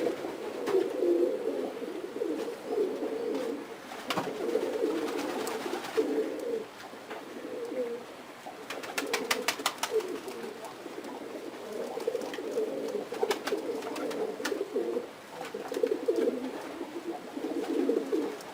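Several domestic pigeons cooing without a break, with a quick run of light taps about halfway through.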